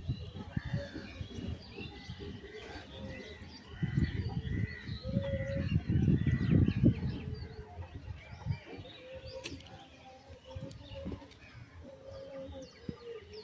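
Birds chirping, with short low cooing notes repeating now and then. Bursts of low rumble come and go, loudest about four to seven seconds in.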